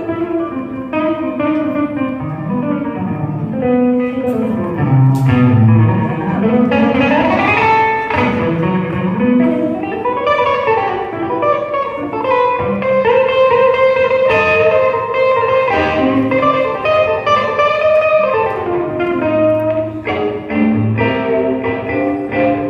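Solo electric guitar played live, with the whammy bar bending notes: many notes slide down and back up in pitch between picked lines.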